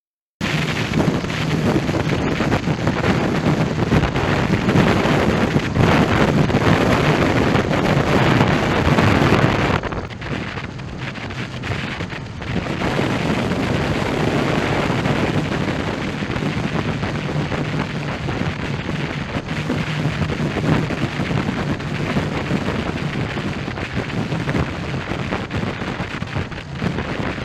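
Heavy wind noise buffeting the microphone of a riding motorcycle, with the engine running steadily underneath. The wind eases briefly about ten seconds in, then picks up again.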